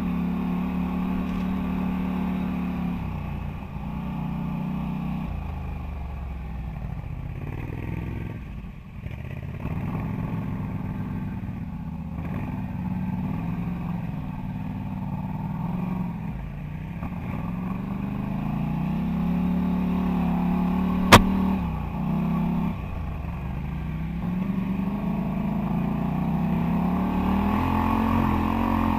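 Quad bike (ATV) engine running under the rider on a rough trail, its revs rising and easing off again and again as the throttle is worked. About 21 seconds in there is one sharp click.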